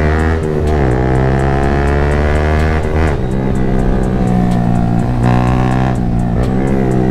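Yamaha MT-15's single-cylinder engine running through an aftermarket Akrapovic exhaust while riding under throttle. Its pitch drops and climbs again several times, about half a second, three seconds and six seconds in, as at gear changes and throttle blips.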